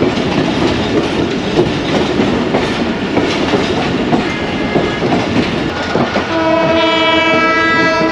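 Passenger train running on the rails, wheels clacking over the track joints under a steady rumble. From about six seconds in a train horn sounds one long, steady blast.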